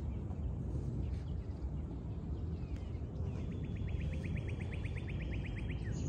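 A wild songbird sings a dry trill of rapid, evenly spaced notes, about nine a second, starting about three seconds in and lasting a little over two seconds, over a steady low outdoor rumble.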